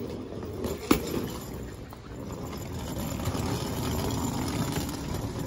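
Wheels of rolling suitcases rumbling over asphalt as they are pulled along, with one sharp click about a second in.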